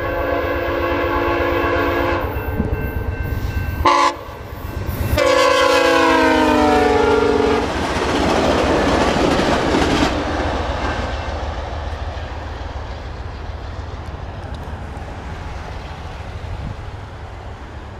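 VIA Rail passenger train's locomotive horn sounding for a grade crossing: a long blast, a short blast about four seconds in, and a long blast about five seconds in that drops in pitch as the locomotive goes by. The passing cars follow with a rumble and clickety-clack that fades away.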